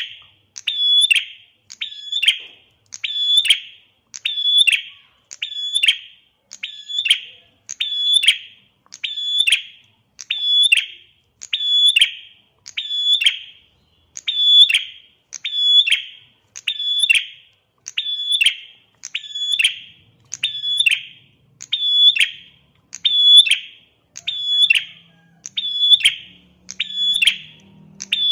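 Prinia (prenjak) call repeated evenly, about five sharp high chirps every four seconds, each one the same, as in a looped lure recording.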